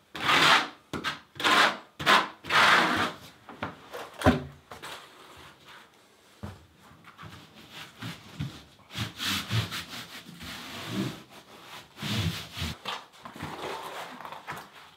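Trowel scraping over the DITRA mat and thinset in repeated rubbing strokes, strong and about two a second for the first three seconds, then fainter and more spread out.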